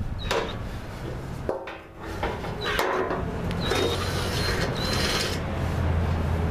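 Cordless drill run in a few short whining bursts, drilling a drain hole through the corner of a plastic tray, with the tray scraping and knocking as it is turned and handled.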